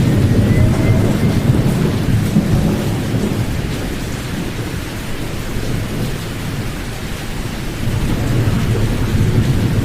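Pink noise for sleep: a deep, bass-heavy rushing with the high frequencies cut away. It eases off through the middle and swells again near the end.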